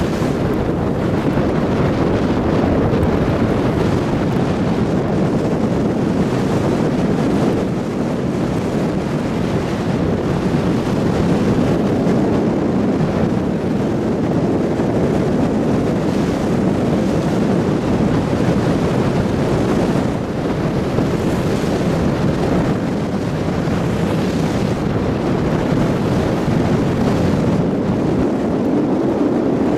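Steady road noise of a car driving on a slushy, snow-covered road, heard from inside the cabin: tyres hissing through wet slush over a low rumble.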